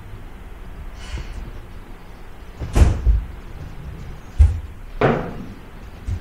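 A handful of separate knocks and thumps from props and furniture being handled on a stage set. The loudest are two heavy thumps close together about three seconds in, followed by two more knocks about a second and a half later.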